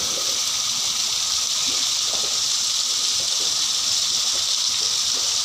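Water gushing steadily from an outflow pipe and splashing into a pool below.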